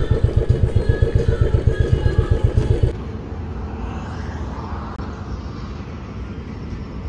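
Royal Enfield Classic 350's single-cylinder engine running at low revs with a quick, even beat. About three seconds in it cuts off abruptly to steady roadside traffic noise.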